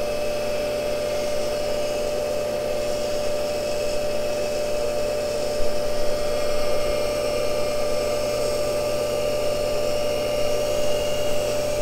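Cincinnati tool and cutter grinder running, its motor and grinding wheel giving a steady whine over an even hiss, while an endmill is fed slowly in toward the wheel to find first contact.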